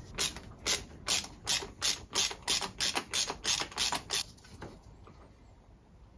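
Hand socket ratchet clicking in quick repeated strokes, about five clicks a second, as the oil filter housing cap is unscrewed. The clicking stops about four and a half seconds in.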